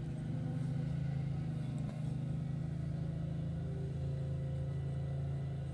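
Diesel engine of a Cat compact track loader running steadily as it brings in a bucketful of asphalt.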